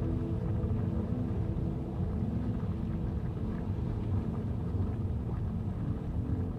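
Ambient soundtrack music in a quiet passage: a steady low rumbling drone with a few faint sustained tones above it.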